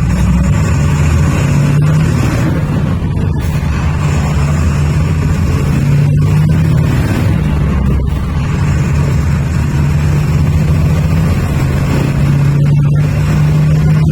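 Engine of a Comil-bodied Volkswagen bus running under way: a steady, loud, low drone whose pitch rises and falls slightly.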